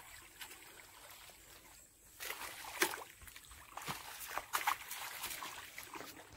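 Shallow muddy pond water splashing and sloshing as it is beaten and stirred with a stick to drive fish toward a net. The splashing is irregular and grows louder and busier about two seconds in.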